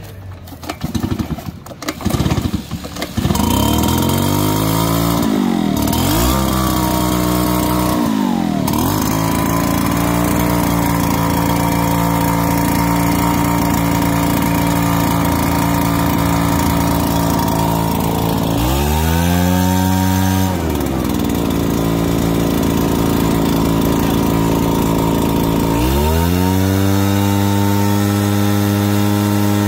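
Two-stroke backpack leaf blower engine being pull-started, catching about three seconds in, wavering, then settling to a steady idle. It is revved up briefly about nineteen seconds in, and revved again about twenty-six seconds in and held at high speed.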